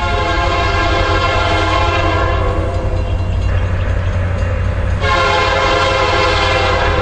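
Union Pacific locomotive's air horn sounding two long blasts as the train approaches: the first runs about three and a half seconds, the second starts about five seconds in, over a steady low rumble.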